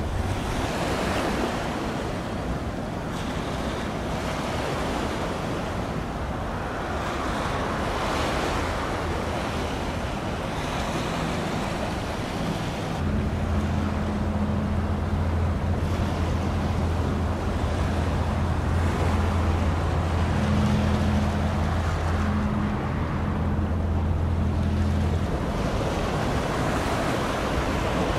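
Wind buffeting the microphone over choppy open water, a steady rushing noise. From about halfway a steady low engine drone from a passing vessel joins in, holding for about twelve seconds before it stops.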